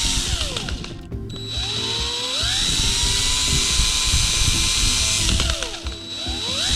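Power drill spinning a heated 15/64 bit through a drilled hole to melt its ragged sides clean. The motor whine speeds up and slows with the trigger, stopping briefly about a second in and easing off near six seconds before speeding up again.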